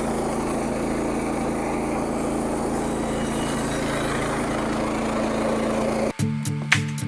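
Frontier OS27 band sawmill's gasoline engine running steadily. It cuts off abruptly about six seconds in and music with a regular beat takes over.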